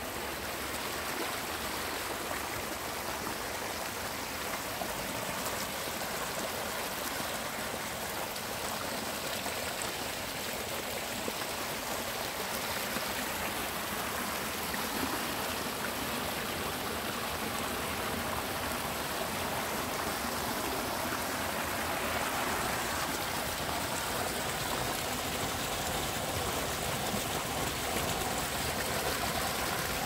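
Irrigation water running along a concrete channel and pouring over a small concrete spillway: a steady rushing splash that grows a little louder in the second half.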